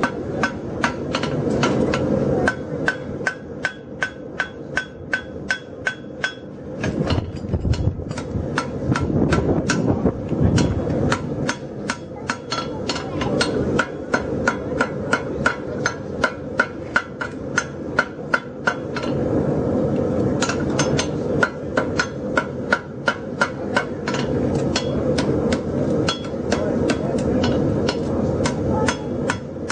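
Farrier's hand hammer forging a steel bar shoe held in tongs on an anvil: rapid blows, about two to three a second, many followed by a short metallic ring from the anvil, with a brief break about seven seconds in. A steady low noise runs underneath.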